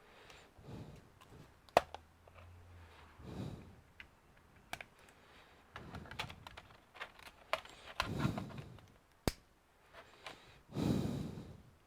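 Scattered clicks and taps of hands working on a laptop's plastic case and parts, with a few sharp single knocks and some soft rustling handling noise.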